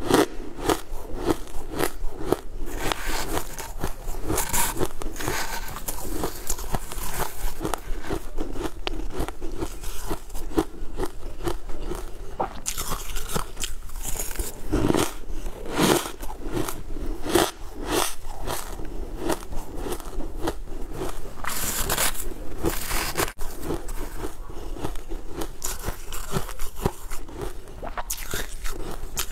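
Close-miked crunching and chewing of shaved ice, many sharp, irregular crunches following one after another.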